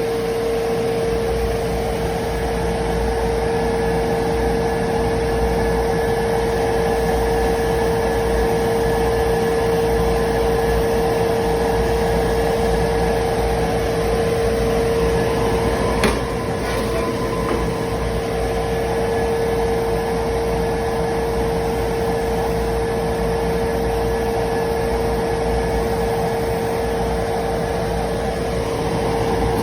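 AC TIG welding arc on aluminium from a Boxer Soldas Q25 welder, giving a steady, even buzz with a strong single-pitched hum. There is one sharp click a little over halfway through.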